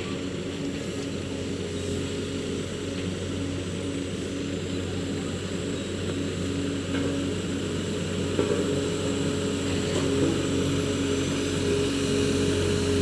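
Road roller's diesel engine running steadily with a low hum. About eight seconds in a second, higher hum joins and it gets a little louder.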